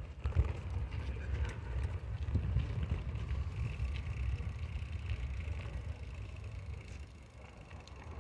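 Low, uneven rumble of a slowly ridden two-wheeler, with wind buffeting the microphone.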